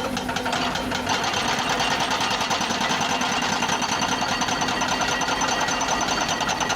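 Excavator working: its engine runs under load with a rapid, even, rhythmic clatter that grows louder about a second in.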